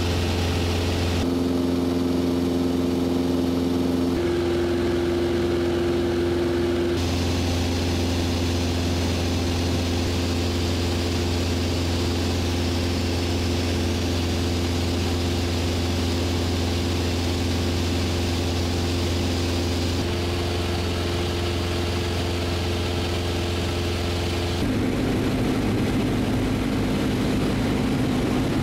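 Mooney M20J's four-cylinder piston engine and propeller running steadily, a constant drone whose tone shifts abruptly a few times.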